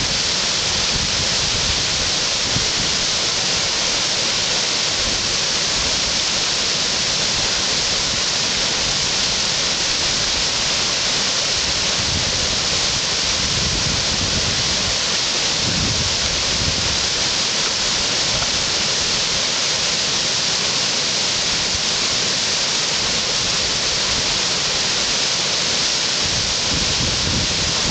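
Whitewater rapids rushing steadily: the continuous hiss of churning river water around a surfing wave.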